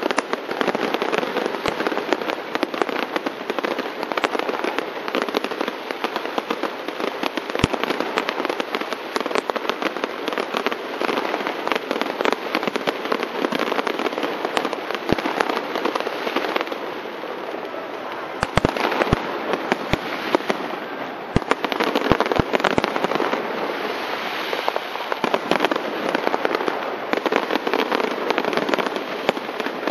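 Aerial fireworks display: dense, continuous crackling of bursting shells, with a cluster of louder, sharper bangs about two-thirds of the way through.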